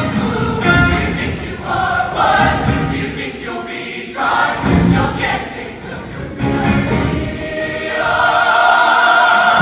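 Large mixed show choir singing in harmony, in short sustained phrases with brief breaks between them, becoming fuller and louder over the last couple of seconds.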